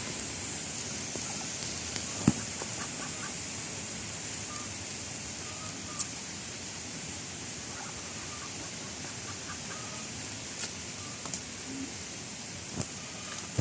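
Chickens clucking faintly now and then over a steady outdoor hiss, with a few sharp clicks.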